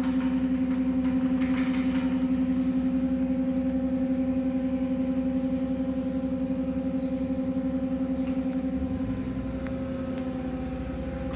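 Spray booth personnel lifter's drive motor running as it raises the basket up the column: a steady machine hum with a fast, even pulse that eases slightly and changes in its low end near the end.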